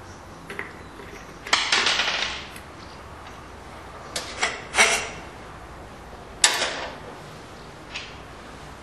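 Hands working the metal fastening and housing of a walk-behind tractor's oil-bath air filter while its wing nut is unscrewed: a handful of separate clicks, knocks and scrapes, with a longer scraping rustle about two seconds in.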